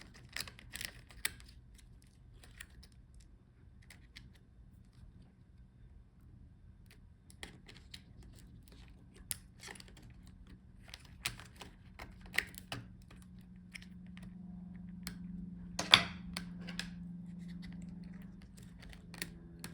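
Scattered small plastic clicks and taps from handling the inside of a laptop while disconnecting flex-cable connectors, with the loudest click about 16 seconds in.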